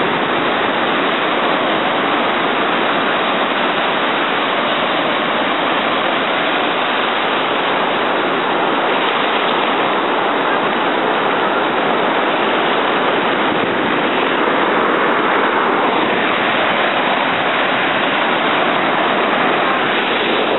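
Ocean surf: waves breaking and foamy wash running up the sand, a steady hiss of moving water.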